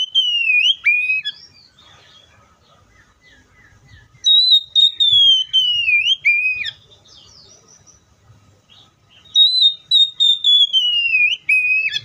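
Oriental magpie-robin singing: three loud, clear whistled phrases, each a long high note sliding slowly downward and ending in a short lower note, with soft, quiet notes between the phrases.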